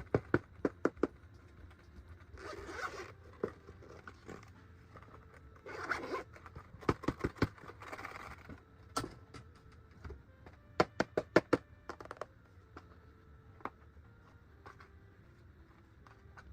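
Toys and packaging being handled: runs of quick sharp clicks and three short zip-like rasps.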